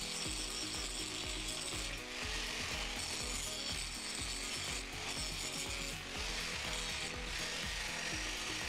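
Electric angle grinder grinding a welded steel joint: a steady hissing grind of the disc on metal, dipping briefly several times as the disc is lifted and set back on the work.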